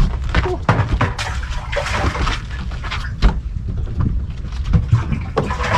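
Water splashing and sloshing with irregular knocks and taps, over a steady low wind rumble.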